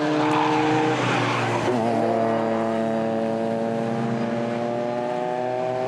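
Formula 4 race car's engine running at speed on track. Its note drops once about two seconds in, then climbs steadily as the car accelerates.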